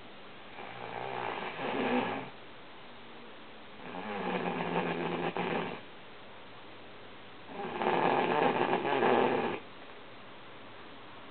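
A woman snoring in her sleep: three long snores of about two seconds each, roughly every three and a half seconds, the last one the loudest.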